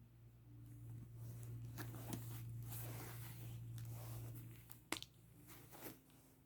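Faint rustling and handling of a phone case and its packaging, with one sharp click about five seconds in, over a low steady hum that stops just before the click.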